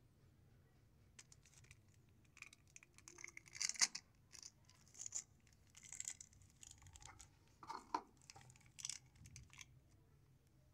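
A KitKat chocolate bar's plastic wrapper crinkling and rustling in irregular bursts as a cat paws and bites at it.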